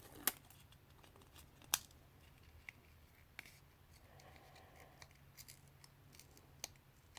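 Faint handling of a folded foil-coated cardstock pipe: a few scattered sharp clicks and light crinkles as the paper panels are peeled, folded and pressed together. The two sharpest clicks come in the first two seconds.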